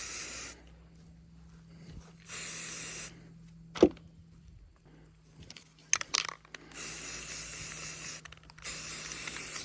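Aerosol spray-paint can hissing in short bursts as paint is sprayed onto a rifle: four sprays, the last two longer than the first, with a sharp knock near the middle.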